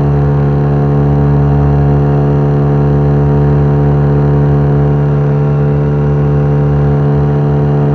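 Boat's outboard motor running steadily at an even pitch while under way, close and loud; it cuts off suddenly at the end.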